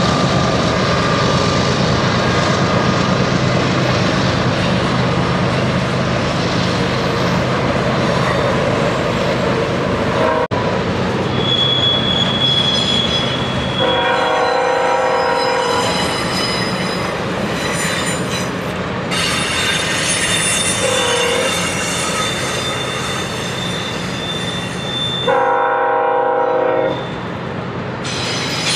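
Double-stack intermodal freight train rolling past, a low locomotive drone at first, then high-pitched wheel flange squeal on the curve. A multi-tone locomotive horn sounds twice, briefly about halfway through and again near the end.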